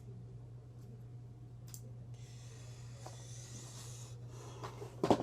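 Paper label being handled and rubbed: a scratchy rub lasting about two seconds, a couple of faint clicks, then a sharp knock near the end, over a steady low hum.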